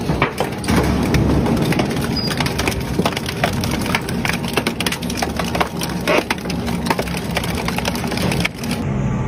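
Twin-shaft shredder's toothed steel rotors tearing up a red drum: a steady grinding crush full of sharp cracks and crunches. The sound cuts off abruptly near the end.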